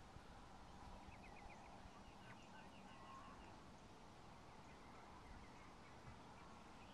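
Near silence with faint bird chirping: a short run of quick high chirps about a second in, and a longer run of rapid repeated chirps around the second and third seconds.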